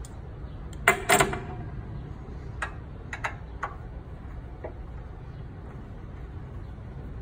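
Clinks and clicks of hand tools on metal fittings while the control air line is disconnected from the compressor's throttle control: a loud clunk with a short ring about a second in, then a few lighter clicks.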